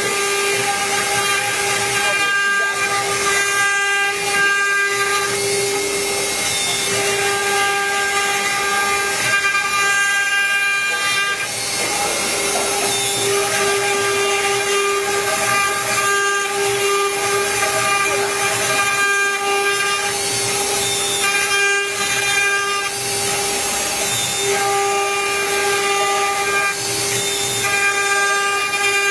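CNC router engraving PVC: a steady spindle whine with a cutting hiss, its higher tones dropping out and coming back every few seconds.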